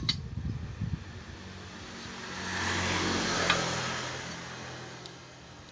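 A motor vehicle passing by, its engine swelling to the loudest point about three seconds in and then fading away, with one short click near the peak.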